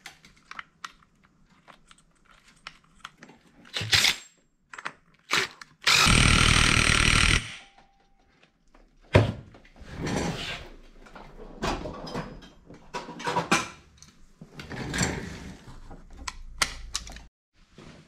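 Small metal clicks as the clutch boss nut is threaded on by hand. About six seconds in, a cordless power tool runs for about a second and a half, spinning the clutch boss nut down. This is followed by irregular knocks, clicks and clatter of tools and parts as the nut is tightened to torque.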